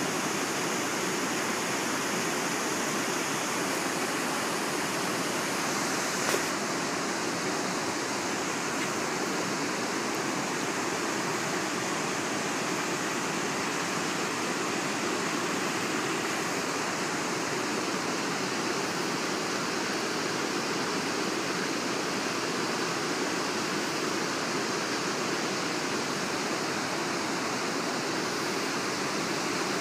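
Steady rush of river water running over rapids, an even, unbroken noise.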